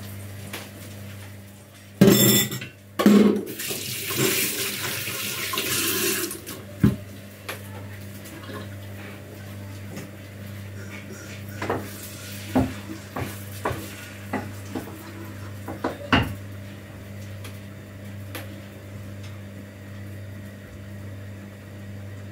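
Kitchen cooking at a gas hob: a couple of loud knocks and a rush of hissing from about two to six seconds in, then scattered clinks of a spatula against a frying pan as food is stirred, over a steady low hum.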